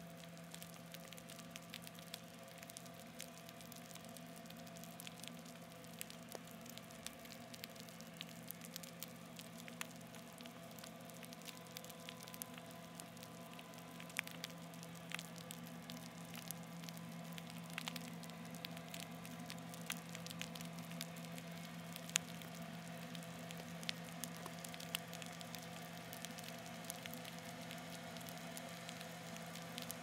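Underwater sound through a hydrophone: the MSC Grandiosa cruise ship's propellers and machinery as a steady low hum with several held tones, growing slightly louder, over scattered crackling clicks.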